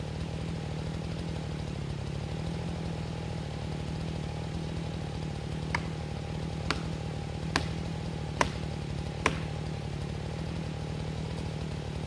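A chainsaw idling steadily, with five sharp knocks about a second apart near the middle.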